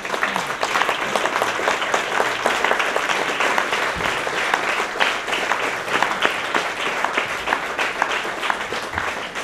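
Audience applauding: a dense, even mass of many hands clapping, beginning all at once and holding steady.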